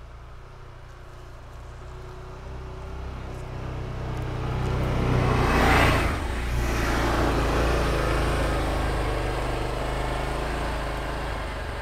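Can-Am Defender HD10 side-by-side on Apache 360 LT snow tracks, its V-twin engine running as it drives through snow toward and past the camera. It grows steadily louder, passes closest about six seconds in with a brief rush of track noise, then drives on away.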